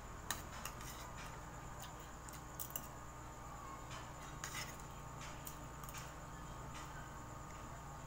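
A metal spoon clicking and scraping against ceramic plates and a bowl now and then during eating, a handful of short sharp clicks over a faint steady hum.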